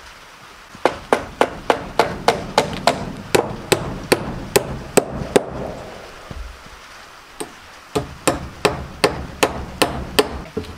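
Hammer driving nails into chainsaw-milled live-edge wooden siding boards. It goes as a quick run of sharp strikes, about three a second, then a pause of about two seconds, then a second run.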